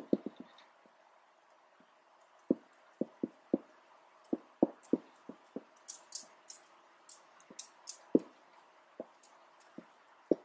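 Marker drawing on a whiteboard: irregular quick taps of the tip against the board, with short high squeaks of strokes clustered a little past the middle.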